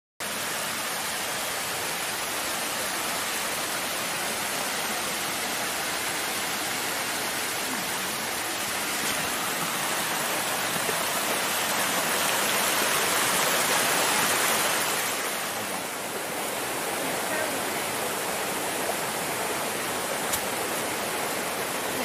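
Waterfall and stream rushing over rocks: a steady splashing of falling water that grows a little louder midway, then drops back.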